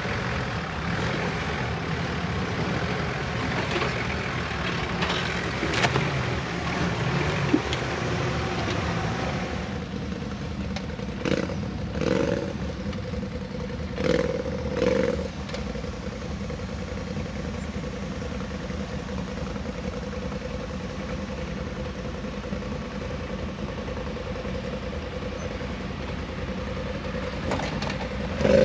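Off-road vehicle engines working on a rocky climb: a 4x4's engine runs under load with a busy, dense sound for the first ten seconds or so, then a quieter steady engine note takes over, with two short rev swells a little after the middle and a brief louder burst at the very end.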